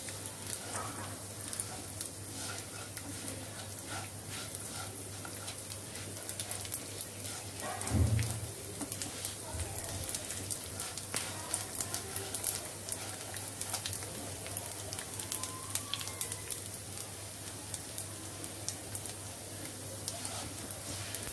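Rice and mung dal frying in mustard oil in a pan: a steady sizzle with many small crackles. A single louder knock about eight seconds in.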